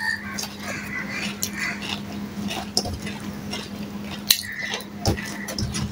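Close-up eating with the hands: chewing and wet mouth smacks, with sharp clicks as fingers work rice against a steel plate, over a steady low hum.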